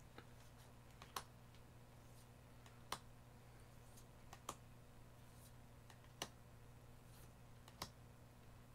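Digimon Card Game trading cards being flipped through one at a time, a faint flick of card stock about every second and a half, five in all, over a faint steady hum.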